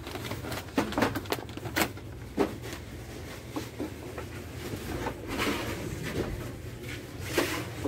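A plastic shopping basket's metal wire handles clicking and rattling as the basket is carried. There is a quick run of sharp clicks in the first couple of seconds and a few more later, over a steady low hum.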